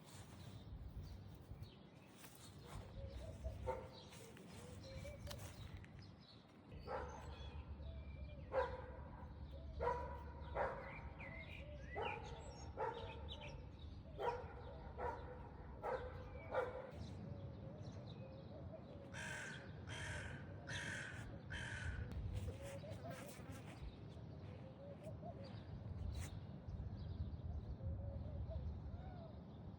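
A series of short, harsh animal calls repeated about once a second, followed by a few higher-pitched calls, over a low background rumble.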